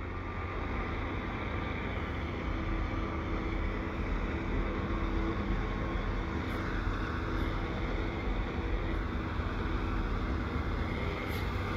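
Heavy diesel engines of a snow-removal snowblower and dump truck running steadily with a low drone.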